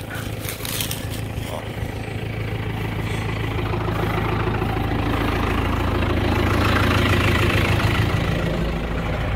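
Tractor engine idling steadily, getting louder from about three seconds in.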